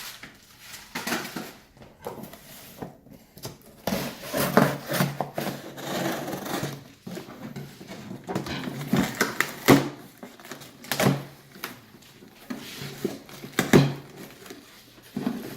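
Cardboard box being handled and opened: irregular scraping and rustling, with several sharp knocks, the loudest about ten, eleven and fourteen seconds in.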